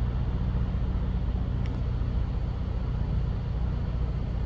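A car engine running at idle: a steady low hum that does not change.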